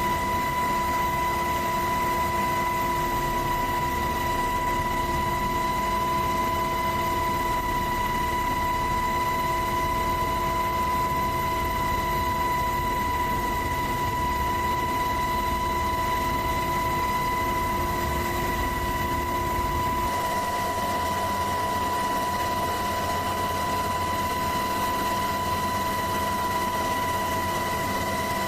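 Helicopter in flight heard from inside the cabin: steady engine and rotor noise with a high, steady whine. About twenty seconds in, the deepest part of the noise drops away.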